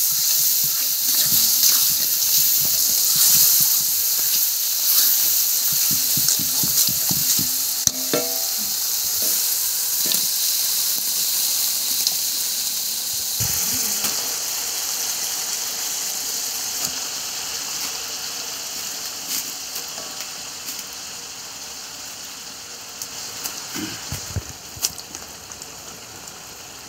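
Spice paste and chopped meat sizzling loudly in a hot oiled wok, with a spatula scraping and stirring. About halfway through, once shredded banana blossom fills the pan, the sizzle grows steadily quieter.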